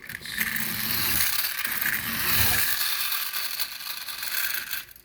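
Friction motor of a tin toy airplane whirring as it is spun up, a dense rapid gear whir that eases off and stops just before the end as the flywheel runs down.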